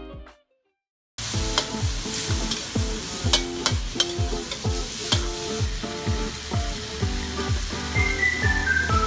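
Stir-frying in a wok: food sizzling steadily as a metal spatula tosses it, starting about a second in after a brief silence. Background music with a steady beat plays over it, with a short run of falling high notes near the end.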